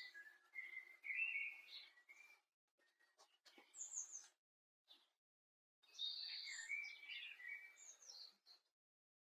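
Garden songbirds singing and chirping in three short bouts of high twittering phrases, separated by pauses.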